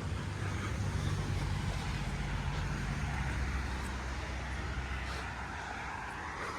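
A motor vehicle's engine running with a steady low hum over a constant hiss, the hum shifting lower about halfway through.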